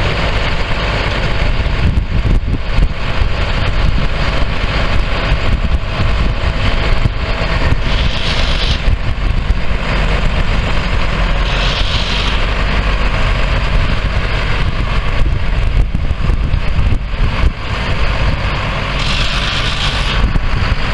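Diesel engine of a sprayer truck idling steadily, with wind rumbling on the microphone. A few brief hisses come through about a third of the way in, around the middle and near the end.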